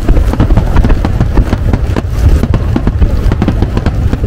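Aerial fireworks shells bursting in quick succession, a dense run of sharp bangs and crackles over a low rumble.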